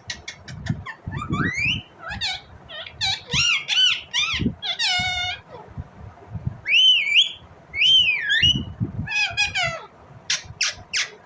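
Indian ringneck parakeet chirping and squawking in a quick series of short calls, many sliding up in pitch, with a pair of wavering whistled notes about two-thirds of the way through.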